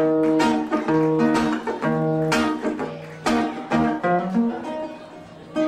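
Live Eritrean band playing an instrumental passage: a plucked, guitar-like melody of short held notes over a low bass note, getting quieter near the end.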